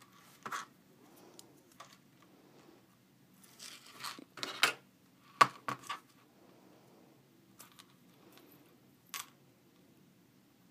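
Small metal craft chain clinking and rattling as it is handled and worked with small pliers: scattered light clinks, a flurry of them about four seconds in and two sharp clinks just after.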